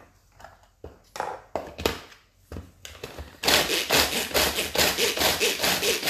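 A few knocks as the lid goes onto a manual pull-cord food chopper. About halfway through, a loud, rhythmic whirring starts, about five strokes a second, as the cord is pulled again and again and the blades grind shortbread biscuits into crumbs.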